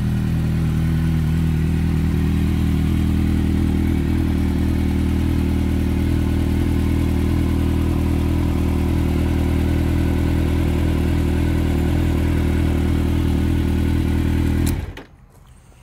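Kawasaki Z750S inline-four engine idling steadily through an aftermarket exhaust, running cleanly with no extraneous noises. It is switched off with the ignition key about a second before the end, and the sound cuts off suddenly.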